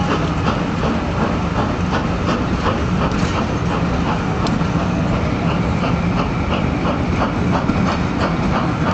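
Train running over the tracks: a steady rumble with regular clicks of wheels passing over rail joints and pointwork.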